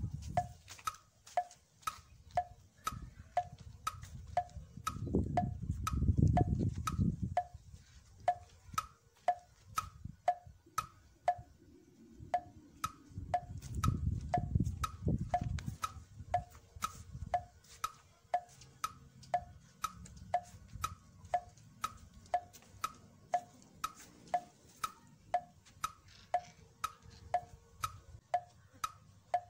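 Background music cue of a steady tick-tock on a wood block, two pitches alternating at about one and a half ticks a second. Two stretches of low rumble rise under it, around five to seven seconds in and again around thirteen to sixteen seconds in.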